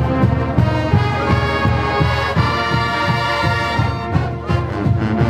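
College marching band playing: brass section holding sustained chords over a steady, regular drum beat from the percussion.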